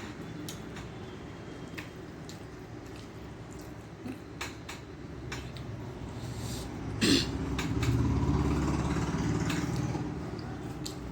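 Close-up eating sounds: chewing and soft clicks of fingers mixing rice on a plate, with a sharper click about seven seconds in. A low engine-like rumble swells from about six seconds in, is loudest around eight seconds and fades out.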